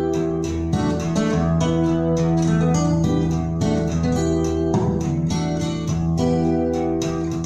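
Song playing over a NAD 310 amplifier and Pure Sound PS204 loudspeakers: an instrumental passage of strummed acoustic guitar over a steady bass line, with no singing.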